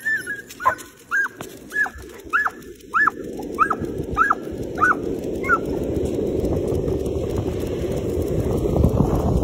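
Dog yipping excitedly: about ten short, high yips, roughly one and a half a second, that die out about five seconds in. A rushing noise builds up underneath and grows louder toward the end.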